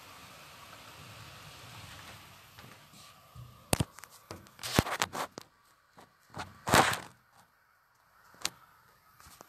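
A steady hiss, then from about three and a half seconds in a run of sharp knocks and clatters close to the microphone, the loudest just before and just after the middle, with one last knock near the end.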